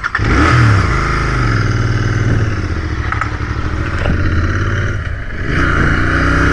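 Royal Enfield Continental GT motorcycle engine running under way. About five seconds in the revs briefly drop, then climb again with rising pitch.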